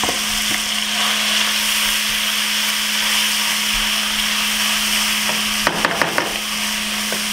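Cubes of seasoned pork cheek sizzling steadily as they fry in a hot pan, with a steady low hum underneath. A spoon scrapes and knocks against the pan a few times near the end.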